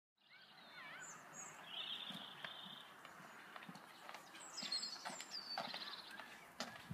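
Small birds singing and chirping, including a short trill about two seconds in, over repeated footsteps on a paved path.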